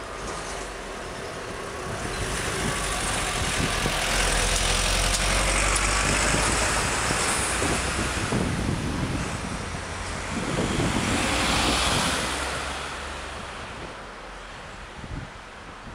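Street traffic: cars driving past, tyre and engine noise swelling in a long pass through the middle and a shorter second pass soon after, then fading away near the end.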